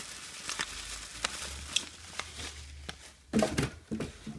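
Plastic bubble wrap crinkling and rustling as it is handled and pulled open, with many small crackles. About three seconds in there is a louder stretch of rustling and handling as a paper sheet and metal hooks come out of the wrap.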